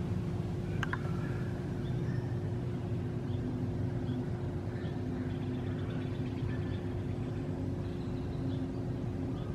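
Steady low hum of a distant engine carrying over the water, holding a constant pitch. Faint short bird chirps come and go over it, with one sharper call about a second in.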